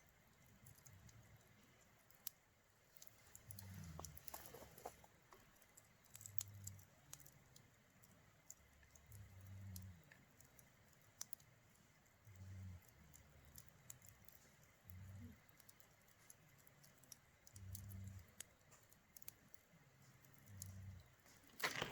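Faint campfire crackling, with sparse sharp pops and a louder burst of crackles near the end. Soft low thuds recur every two to three seconds underneath.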